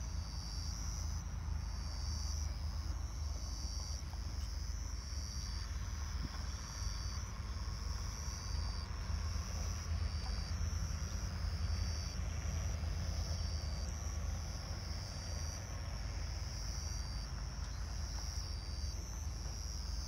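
Insects chirping in a steady, regular pulsing trill, over a continuous low rumble.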